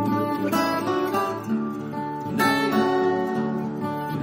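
Background music: an acoustic guitar strumming chords, a new chord struck about every two seconds.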